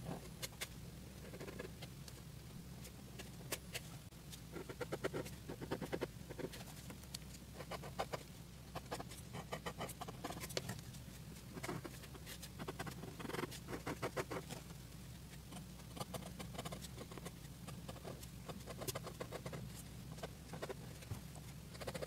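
Fibre-tip pen (Monami Plus Pen 3000) scratching on paper in quick runs of short strokes, as when hatching and drawing line detail, with brief pauses between runs.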